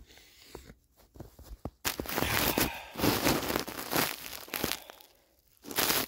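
Close crinkling, rustling handling noise on a phone's microphone as it is gripped and moved. It runs for about three seconds starting near two seconds in, and a short burst comes just before the end.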